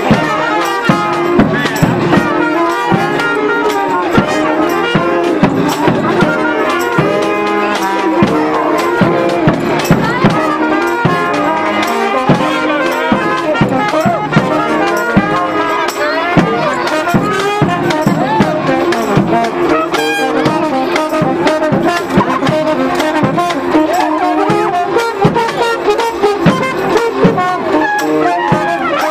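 Brass band playing a second-line street tune: trombone and other horns over a steady drum beat.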